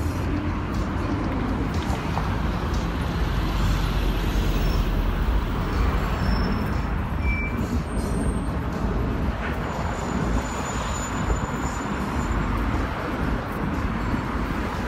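Steady traffic noise from a busy multi-lane street, with cars and buses passing and a heavy low rumble. A few brief high squeaks sound partway through.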